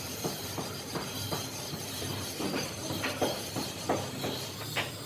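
Irregular knocks and clinks, a few a second, over a steady hiss, like metalworking clatter.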